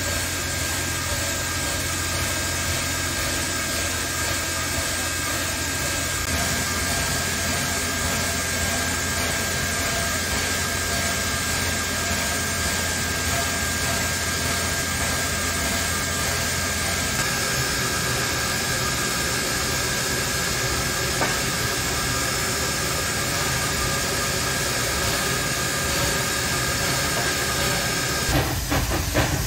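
Standing 1901 steam locomotive hissing steadily as steam vents from its boiler, with a thin steady tone over the hiss. Near the end, a quick run of rhythmic chuffs begins.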